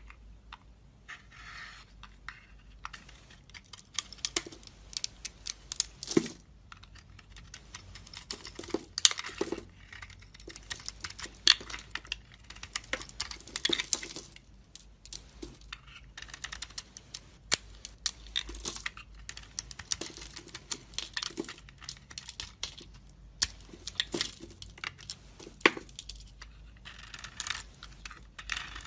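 Dry soap cubes crunching and crumbling: a dense, irregular run of crisp crackles and sharp snaps, coming in clusters with short pauses between them.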